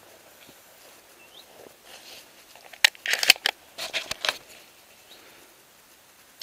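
Shotgun being handled close to the microphone: a quick run of sharp clicks and clatters about three seconds in, lasting a second or so.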